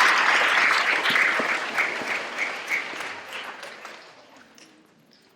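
Audience of students applauding, the clapping thinning out and dying away over about four seconds into a few last separate claps.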